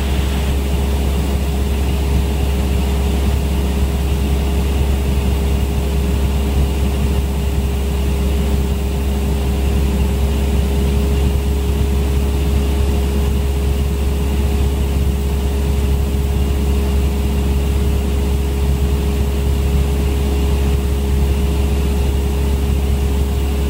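Cessna 172 Skyhawk's engine and propeller droning steadily in level flight, heard inside the cockpit, with a constant low hum and a steady tone throughout.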